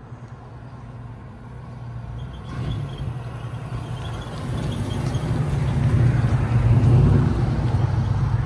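1950 Chevrolet coupe driving up the road toward the camera, its engine running and getting steadily louder as it approaches, loudest about two-thirds of the way through.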